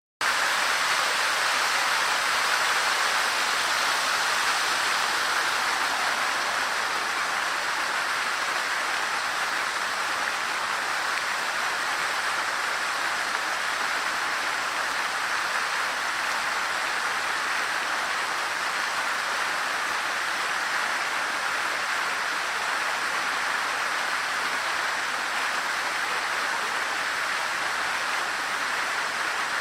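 Fountain water splashing steadily into its basin, an even rushing noise that cuts in at the very start.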